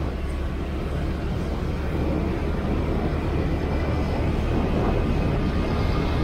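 Steady low rumble of a moving vehicle with road noise, unchanging throughout.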